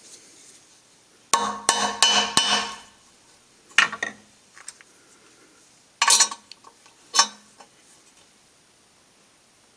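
Metal hand tools clinking and knocking on metal while working a screw extractor: a quick cluster of clinks about a second in, then single sharp knocks near four, six and seven seconds.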